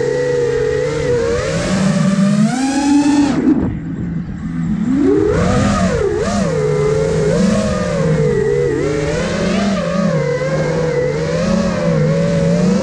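Motors and propellers of a five-inch FPV racing quadcopter, an iFlight Nazgul Evoque F5, buzzing, the pitch rising and falling with the throttle. About three seconds in the pitch climbs steeply, then the sound drops away briefly as the throttle is cut, and it swells back and keeps wavering.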